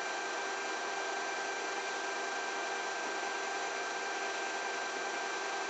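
Steady hiss from an old film soundtrack, with faint steady tones and no distinct event.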